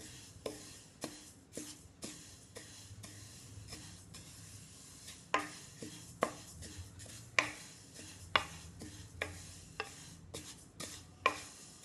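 Wooden spatula stirring dry-roasting sesame seeds in a metal kadhai: the seeds rustle and scrape along the pan, with irregular knocks of the spatula against the pan about once a second.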